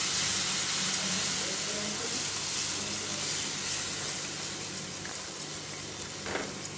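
Onion-tomato masala sizzling in a hot nonstick kadai on high flame, just after half a cup of water has gone in; the hiss slowly dies down. A wooden spatula stirs and taps against the pan about twice a second.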